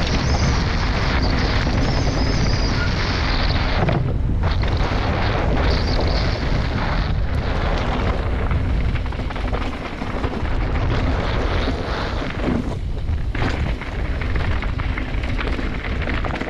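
Mountain bike running fast down a dirt and gravel trail: steady wind buffeting on the microphone over the rumble and rattle of the tyres and bike on the rough surface, easing briefly twice.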